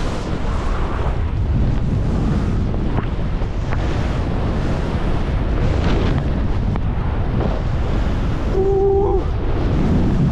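Wind rushing over the microphone of a skier's camera during a downhill run, with skis sliding on snow beneath it. A short tone sounds about nine seconds in.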